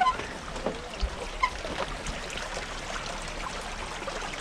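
Water trickling in a shallow pool, a steady trickle with a few short clicks near the start and about one and a half seconds in.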